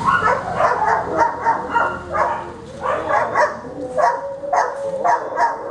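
Detection dog, a Belgian Malinois, giving short whines and yips in quick succession, about four or five a second, while sitting with its nose to the wall in its indication on the odour.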